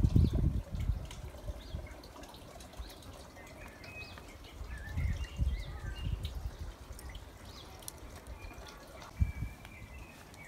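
Small birds chirping and singing, short high calls scattered throughout. Low rumbles on the microphone near the start and about five seconds in, and a brief thump just after nine seconds.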